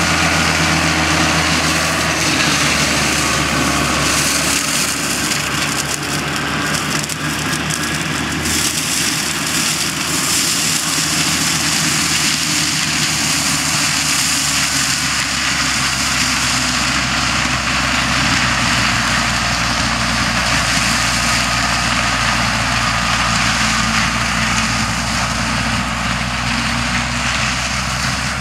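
Fiat 780 tractor's diesel engine running steadily under load, driving a PTO flail mulcher that shreds dry corn stalks with a constant rushing hiss.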